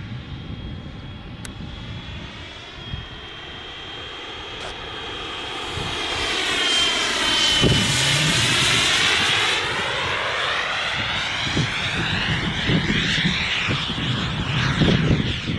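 JetCat P20SX miniature kerosene turbine in a small foam RC jet flying past: a steady high whine over a rushing hiss, growing louder to a peak about halfway through and easing off a little as it passes.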